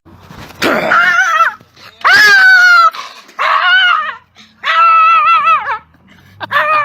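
Dog whining and yelping: five loud, high, drawn-out cries with short gaps between, their pitch wavering and falling.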